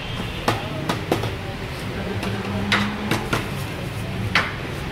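Steel ladle clinking against steel serving bowls and the rim of the big pot as paye broth is ladled out: about six short, sharp clinks, spaced unevenly, over a steady background din.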